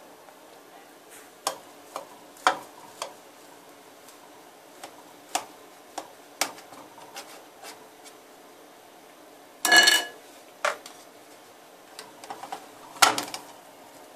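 Metal knife and cake slice knocking and scraping against a dish while a baked Alaska is cut and lifted: scattered sharp clicks, a louder scrape with a brief ring about ten seconds in, and another clatter near the end.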